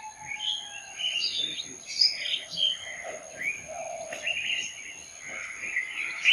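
A chorus of birds chirping and calling over one another in short, quick notes, over two steady high-pitched tones.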